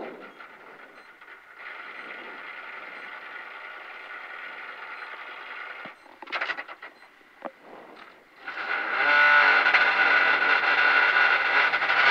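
Peugeot 208 Rally4's turbocharged three-cylinder engine, heard from inside the cabin, running steadily on the start line, with a few short clicks in a quieter moment. About eight and a half seconds in it is revved up sharply and held at high, steady revs, ready for the launch.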